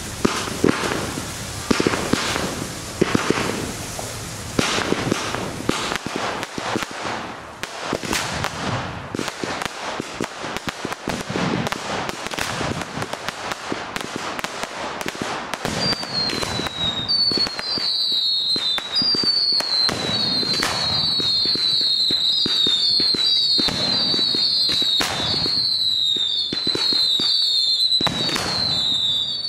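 Fireworks going off: a dense run of bangs and crackling, then from about halfway a string of whistles in quick succession, each falling in pitch, with bangs among them.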